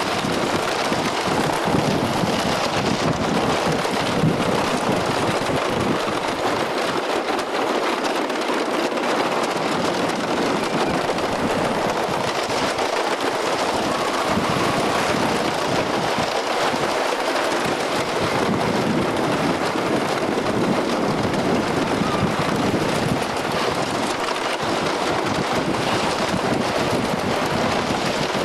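Wooden roller coaster train running along its track at speed, with the wheels making a steady, loud rush of noise and wind buffeting the microphone.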